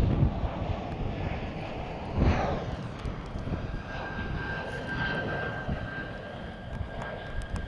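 Airbus A320-family airliner on landing approach: the steady rush of its twin jet engines, with a thin high whine setting in about halfway. Wind buffets the microphone, strongest at first.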